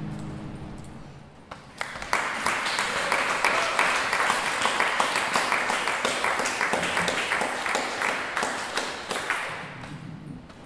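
The last low notes of an acoustic guitar die away, then a small audience applauds for several seconds, the clapping thinning out near the end.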